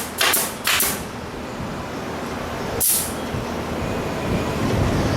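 Pneumatic nail gun firing into plywood flooring, three quick shots in the first second, each with a hiss of air, then a single shot near the 3-second mark. A steady low rumble builds up after it.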